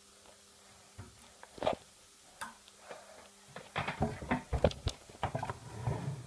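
Handling noise: scattered clicks, knocks and rustling of things being moved, sparse at first and busier and louder from about halfway.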